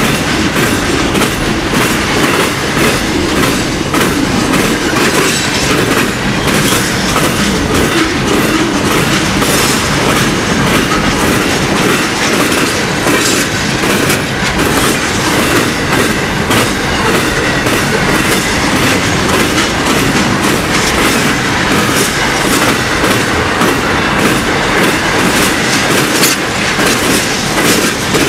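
Container wagons of a long intermodal freight train rolling past close by: a loud, steady rolling noise with rapid clicking of the wheels over the track.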